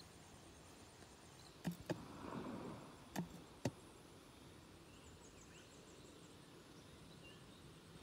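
Handling of a plastic insect container: four sharp clicks in the first half, the middle two about half a second apart, with a short rustle between them. A faint, fast, high ticking runs underneath.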